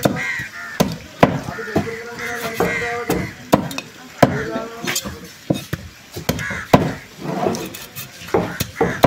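Heavy cleaver chopping fish on a wooden block: sharp knocks about one to two a second, at an uneven pace.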